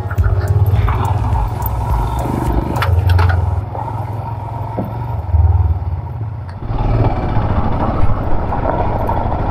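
Royal Enfield Himalayan single-cylinder motorcycle engine running with a low, pulsing thump; its note changes about seven seconds in.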